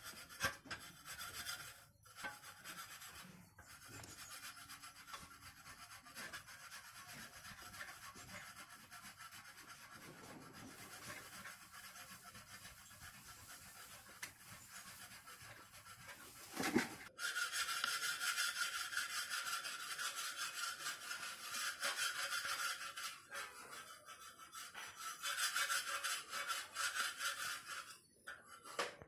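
Kitchen knife cutting a set slab of milk powder burfi, the blade scraping and rasping against the wooden table in repeated strokes. A thump comes a little past halfway, after which the scraping is louder.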